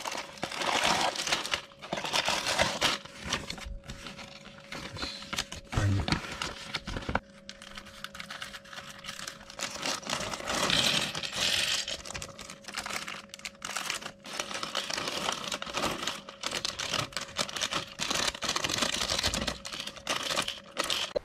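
Clear plastic parts bags crinkling and rustling as they are handled and opened, with the cardboard box rustling early on and small plastic building bricks clicking and rattling onto a wooden table.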